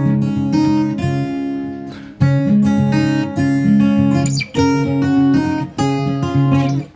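Background music: strummed acoustic guitar playing a steady run of chords, with a short break about two seconds in and fading near the end.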